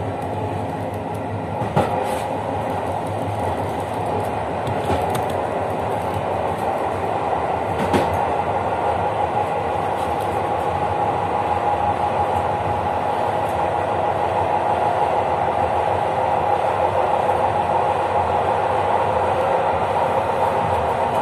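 Passenger train running along the track, heard from its rear carriage: a steady rumble of wheels on rails, growing slightly louder toward the end, with occasional clicks and knocks, the sharpest about two seconds and eight seconds in.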